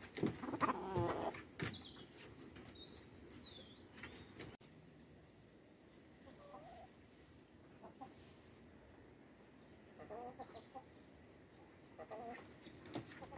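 Chickens clucking at intervals, hens and a rooster, with a louder, busier stretch in the first two seconds and short clucks every few seconds after.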